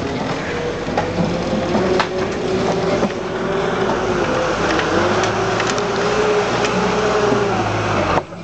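Land Rover Series IIA short-wheelbase four-cylinder petrol engine pulling hard under load through mud and up a steep bank, its note wavering, with occasional sharp knocks and rattles from the vehicle. The sound drops suddenly near the end.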